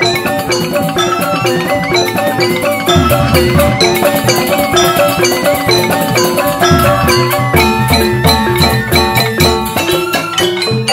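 Joged bumbung gamelan playing: bamboo xylophones (grantang) struck in fast, busy patterns, with kendang hand drums beating underneath, the drum strokes heavier from about three seconds in.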